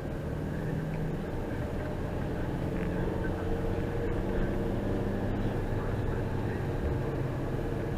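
A vehicle's engine running steadily, a low drone with held tones that shift slightly about three seconds in.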